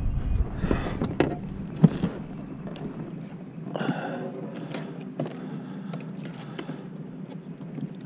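Electric trolling motor humming steadily at a low pitch, with a few light knocks and clicks of gear being handled in the boat in the first two seconds and a brief faint voice about four seconds in.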